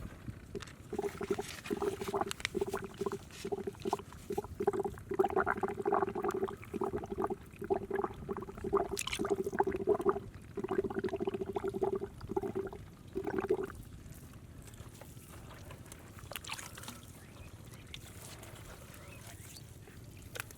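Water gurgling in a quick run of short pitched pulses for about twelve seconds, stopping suddenly after that.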